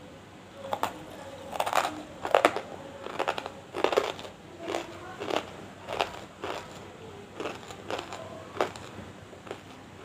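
Close-miked crunching as hard pieces of banslochan (tabasheer) are bitten and chewed: about a dozen sharp crunches in an uneven run, starting about half a second in.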